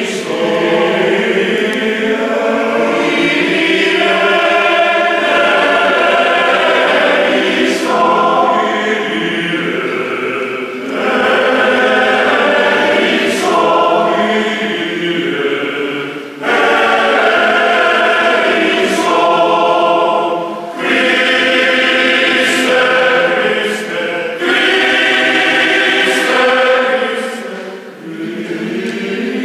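A large male choir singing in harmony, in long phrases separated by brief breaths.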